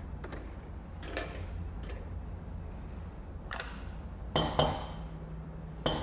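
Coffee-making ware being handled, with about five short metallic clinks and knocks, the loudest pair a little past the middle. They sound over a steady low hum.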